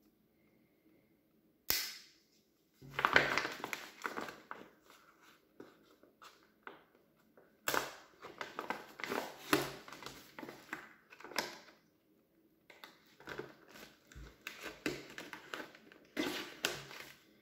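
Thick plastic ration-pack pouch being cut open with a knife along one end, the film crackling and crinkling in repeated bursts. A single sharp click comes just under two seconds in.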